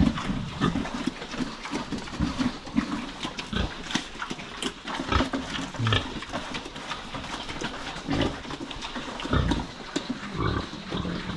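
Farm pigs grunting in short, irregular calls, one after another.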